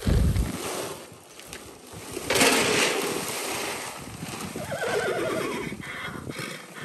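A horse neighing about five seconds in, a wavering call falling in pitch. Earlier, feed pellets pour from a sack into a tub, and a loud rushing noise comes about two seconds in.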